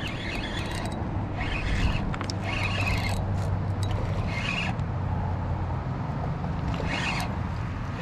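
Penn Spinfisher spinning reel being cranked in short spurts while a hooked bass is played, a raspy whir of the reel's gearing about six times, over a steady low rumble.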